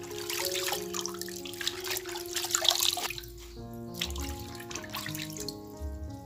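Water sloshing and splashing in a plastic basin as hands swish spinach leaves to wash them, dying away about three seconds in, with background music throughout.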